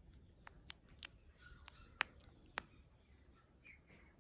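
Scattered small, sharp clicks and taps from a mechanical wristwatch being handled. The loudest comes about two seconds in, with another soon after and one near the end.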